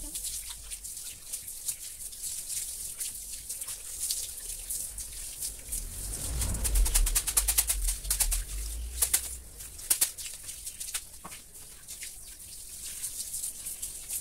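A broom scrubbing a wet concrete floor, with a quick run of strokes about halfway through and single strokes after, over the steady hiss of water from a garden hose.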